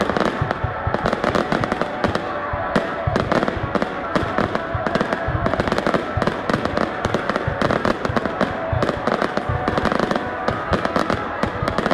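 Aerial fireworks display firing a dense, unbroken volley: rapid bangs of bursting shells and crackle, several a second.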